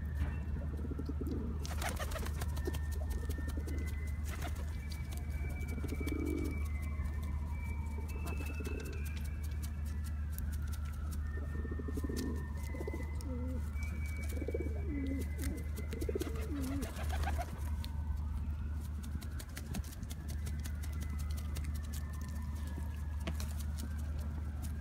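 Feral pigeons cooing in short low calls as they crowd in to be hand-fed, with a few sharp clicks and wing flaps. A slow rising and falling tone repeats in the background over a steady low hum.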